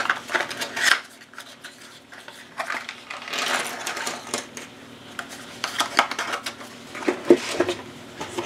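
Cardboard jigsaw puzzle pieces clattering and rustling as they are tipped out and handled on a table, in scattered clicks with a denser patch a few seconds in.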